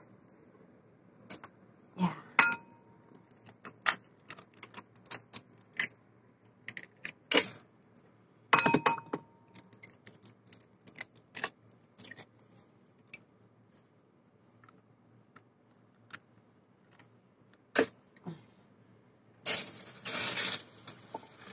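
Two eggs tapped and cracked against a ceramic bowl and broken into it: scattered light clicks and clinks, some with a short ring, and two louder bursts of shell crackling, one about a third of the way in and one near the end.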